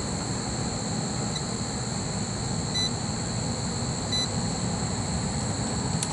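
A clamp-on amp meter beeps briefly twice, about a second and a half apart, over a steady low rumble, and a sharp click near the end as the clamp jaws close around a wire.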